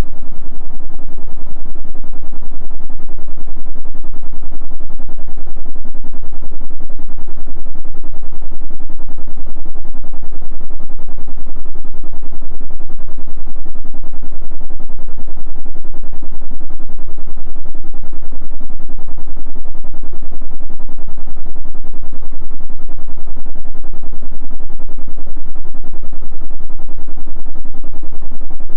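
Electric fan running steadily: a loud, low hum and whoosh from the spinning blades, pulsing rapidly and evenly.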